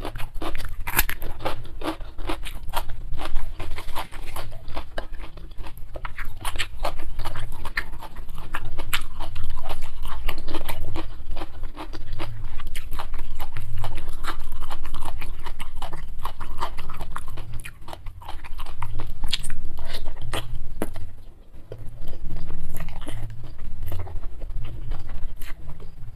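Close-miked chewing of crunchy raw cucumber and mouthfuls of instant fried noodles: many quick crunches and wet clicks, with a brief lull late on.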